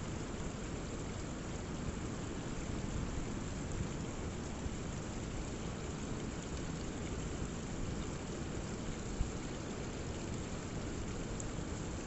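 Rainwater runoff trickling and splashing down a rock cliff face onto boulders after a heavy rain storm, over the steady low rush of rough sea surf. One sharp tap sounds about nine seconds in.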